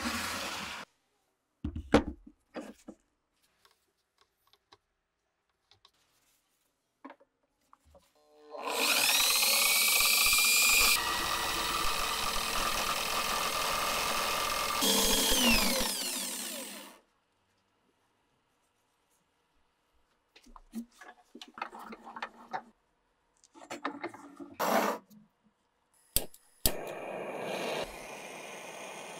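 DeWalt angle grinder with a sanding disc spinning up with a rising whine, grinding against the steel edge of an axe head, then winding down with a falling whine. Short handling knocks come before and after it. Near the end a click is followed by the steady hiss of a gas blowtorch flame.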